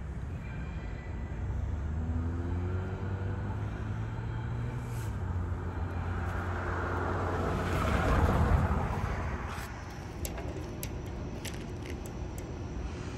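Train rumbling away along the tracks: a low steady drone with a faint rising whine in the first few seconds. A louder rush of passing noise then swells and fades about eight seconds in, followed by a few sharp clicks.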